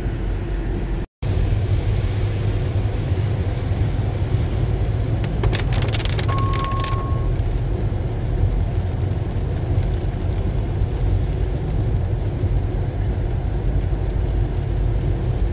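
Steady engine and tyre noise inside a car driving on a rain-soaked road, with rain on the windscreen. A single short beep sounds about six seconds in.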